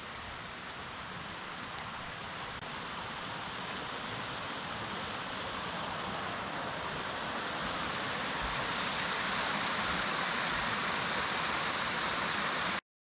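Steady rush of flowing water, growing gradually louder and cutting off suddenly near the end.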